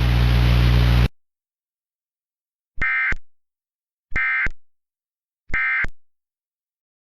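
A steady hiss with a low hum cuts off about a second in, then three identical short bursts of electronic data warble about 1.3 seconds apart: the Emergency Alert System end-of-message (EOM) data bursts that close the alert.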